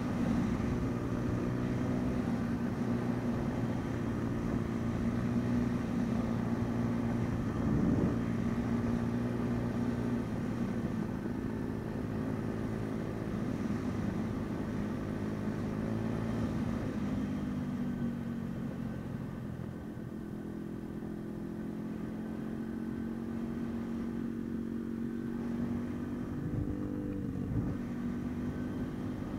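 MRF 140 RC pit bike's 140 cc single-cylinder four-stroke engine running under way, heard from the bike as it is ridden. The engine note holds mostly steady, with small rises and falls in pitch a few times as the throttle changes.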